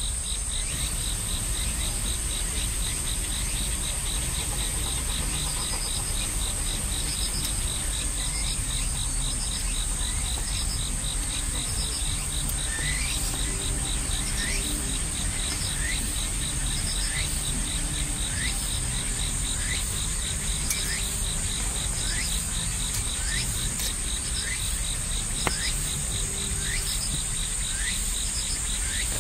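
Crickets and other insects calling in a chorus: a steady high-pitched drone and a fast, even pulsing trill. From about midway, a short rising call repeats about once a second, and there is one sharp click near the end.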